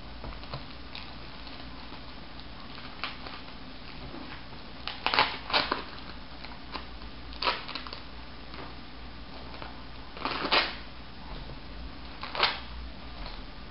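Plastic wrapping of a comic-book bundle being opened and handled: irregular crinkles and rustles, with a few louder crackles about halfway through and near the end.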